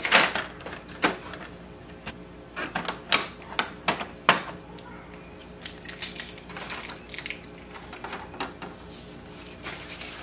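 Irregular plastic clicks, taps and rustles as protective covers and packing pieces are pulled off an HP OfficeJet Pro 8135e inkjet printer. There are a few sharp knocks in the first half, then softer scraping and rustling.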